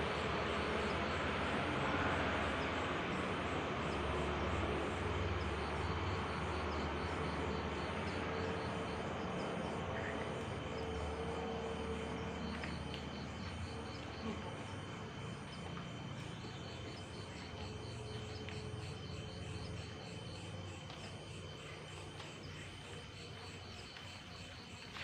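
Night ambience: insects chirping in a steady, even pulse, a bit over once a second, over a low rumble and hiss that slowly fades away.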